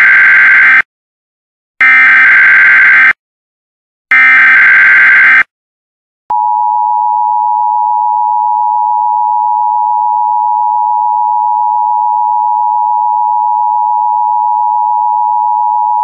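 Emergency Alert System SAME header: three loud, buzzing data bursts about a second long, with short gaps between them. About six seconds in, the National Weather Service's single steady attention tone begins and holds, the alarm signal that a weather warning message follows.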